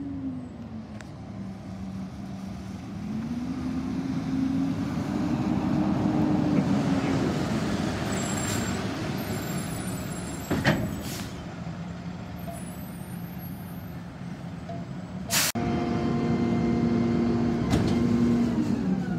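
Rear-loader garbage truck's diesel engine running as the truck pulls up, its pitch rising and falling as it moves. There are two sharp air-brake pops, about ten and fifteen seconds in, and then the engine settles into a steady, higher run.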